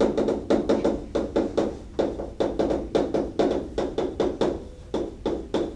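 Chalk tapping and scraping on a blackboard as words are written: a quick, irregular run of sharp taps, several a second.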